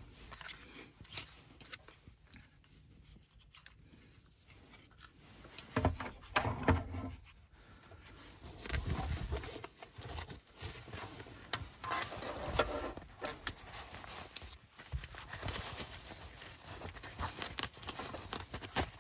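Hands handling a 5.11 Tactical Select Carry Pack: irregular rustling of nylon fabric and mesh with small knocks and clicks, busier about six seconds in and again from about nine seconds on.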